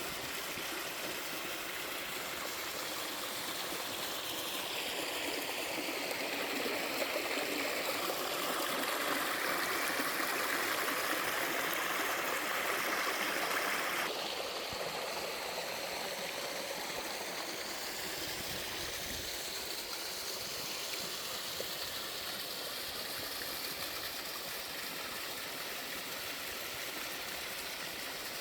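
Water of a mountain stream and two-tier waterfall rushing steadily. It grows louder and brighter about a third of the way in, then drops back suddenly about halfway through.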